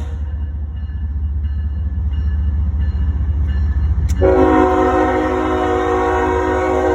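Diesel locomotive of a CSX freight train running with a steady low rumble; about four seconds in its air horn comes on in one long held chord.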